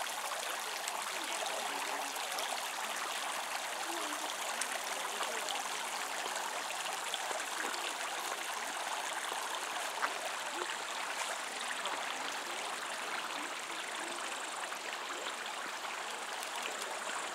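Water splashing and running steadily from a lakeside water feature, where a row of small jets arcs over a concrete edge into the pool.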